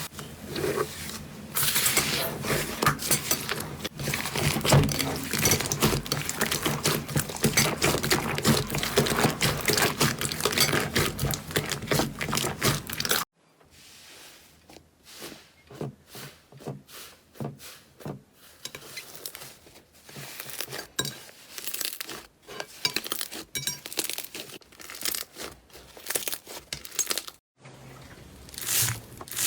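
Slime being squeezed and pulled by hand, with dense crackling and popping; about 13 seconds in it cuts to a quieter clip of sparser sticky clicks and pops.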